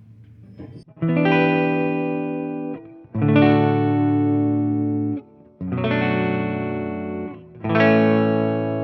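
Clean electric guitar, a Gibson SG through a hand-wired Fender Deluxe Reverb Reissue amplifier into a Marshall 4x12 cabinet: four chords, each struck and left to ring for about two seconds. The chords carry the amplifier's own spring reverb.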